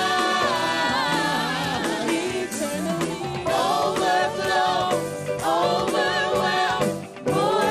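Gospel music: voices singing over a band, with long held and bending sung notes.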